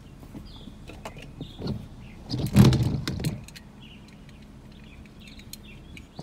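Gusty hurricane wind buffeting the phone's microphone, with one strong gust about two and a half seconds in. Faint bird chirps come and go under the wind.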